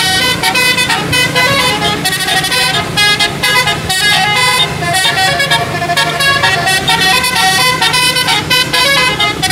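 Indonesian bus 'telolet' musical air horn playing a fast tune, short notes switching pitch several times a second without a break, over a steady low hum.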